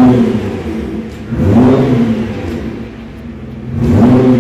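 Car engine revved three times, about two seconds apart, each rev rising and falling in pitch, running steadily in between.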